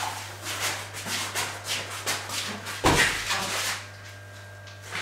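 Shuffling, rubbing and scraping of people handling a large glass table-top pane, with a sharper knock about three seconds in.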